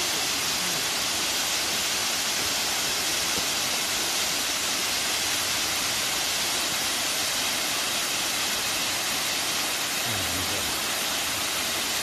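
Waterfall: water cascading down a tall rock face, a steady, even hiss of falling water.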